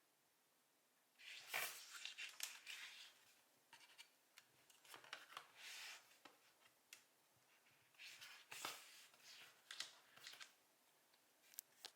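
Faint, irregular rustling and scraping with small clicks, starting about a second in: hands working Play-Doh and plastic modelling tools on a tabletop.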